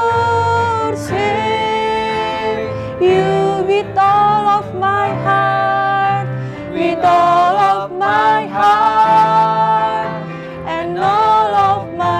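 A woman and a man singing a slow worship song over instrumental backing, with long held notes.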